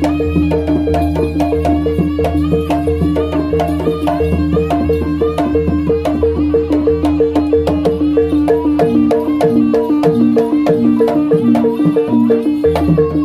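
Live Javanese jaranan music: kendang hand drums playing a dense, busy rhythm, gongs and pot gongs sounding an evenly repeated note over a held low tone, and a wind instrument playing a bending melody on top.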